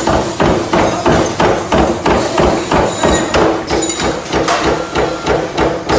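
A machine hammering or stamping in a steady, fast rhythm of about three blows a second, over a steady hum.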